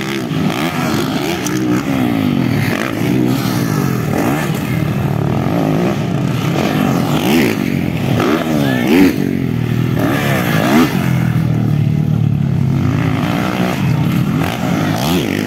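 Several motocross dirt bike engines racing, revving up and down over one another in overlapping rising and falling whines.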